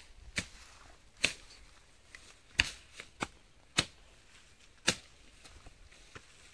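A digging tool striking the ground: about seven sharp strikes at uneven intervals, roughly one a second, with a few fainter knocks between them.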